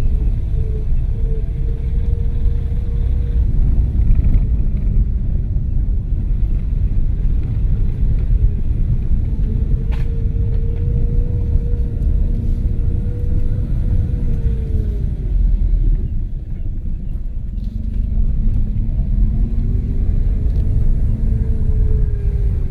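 Car engine and road rumble heard from inside the cabin while driving. The engine note holds steady, dips about two-thirds of the way through, then climbs again as the revs change.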